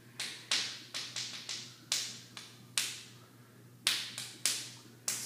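Sharp, irregular knocks, about a dozen in five seconds: a hard-candy scorpion lollipop being struck against a concrete garage floor to crack it open.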